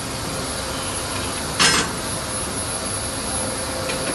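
Automatic carbide cold saw machine running with a steady machine noise and a faint steady tone, with a short burst of hiss about a second and a half in.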